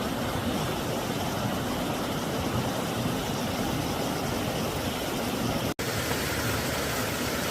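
Steady rush of a rocky mountain stream, an even wash of water noise with a momentary break about six seconds in.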